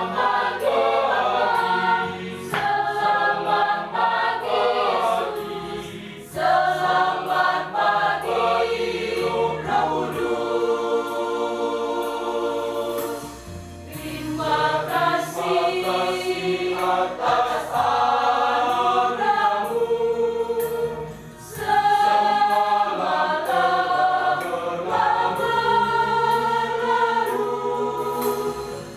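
A church choir singing a hymn in several voice parts, phrase by phrase, with brief breaths between phrases.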